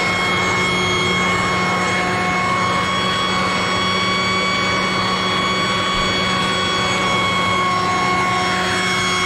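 Mac Allister MBV2800 2800 W corded electric blower vac running steadily in vacuum mode on its lowest power setting, a constant motor and fan whine. Its nozzle is pushed into shingle, which it does not suck up.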